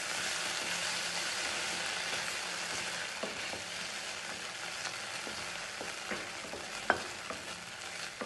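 Diced carrots and ground sweet corn sizzling in butter in a stainless steel kadai while a spatula stirs them. The spatula scrapes the pan and taps it a few times, and the pan rings briefly after each tap. The sharpest tap comes about seven seconds in.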